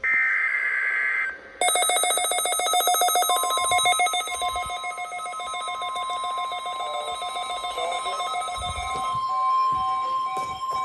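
NOAA Weather Radio test broadcast: a last SAME header data burst, a warbling electronic screech about a second long, then about a second and a half in several weather radio receivers start sounding their alarms with rapid, shrill beeping. About three seconds in, the broadcast's steady 1050 Hz warning alarm tone joins and holds on under the beeping, which thins out near the end.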